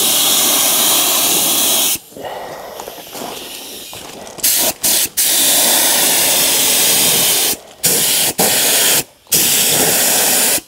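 HVLP spray gun (DeVilbiss StartingLine with a 1.8 mm tip) hissing as it sprays high-build primer, the trigger pulled in passes. A long spray for about two seconds, a quieter lull, a couple of short bursts, then longer passes broken by brief stops.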